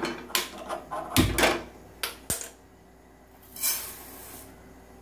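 A non-stick frying pan knocked a few times against the steel gas stove as it is handled, one knock with a low thump. Then sugar is tipped from a cup into the pan, a brief hiss a little before the end.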